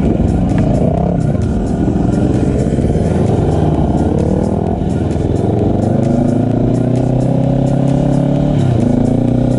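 Sport quad engine under way, accelerating. Its pitch climbs steadily for several seconds, drops sharply near the end as it shifts up a gear, then starts climbing again.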